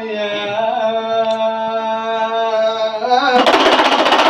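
A man's devotional chanting, drawn out in one long, slightly wavering note. A little over three seconds in, fast rhythmic percussion starts suddenly and louder, covering the voice.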